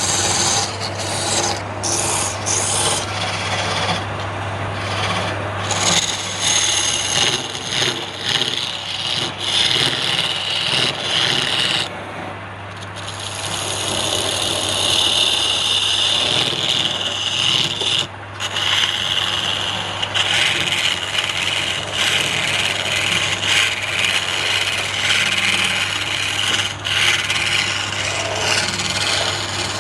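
Wood lathe running with a steady motor hum while a cutting tool scrapes and rasps against the spinning wood. The scraping briefly eases about twelve seconds in and breaks off for a moment near eighteen seconds.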